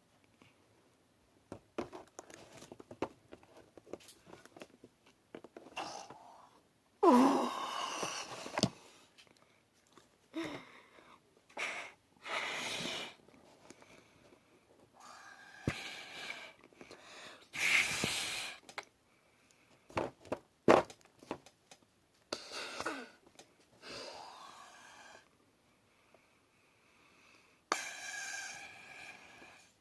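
Slime being squeezed and worked by hand, giving irregular squelching bursts of air escaping, some with short gliding pitches. The bursts come in separate spurts with quiet gaps between them, the loudest about seven seconds in and again near eighteen seconds.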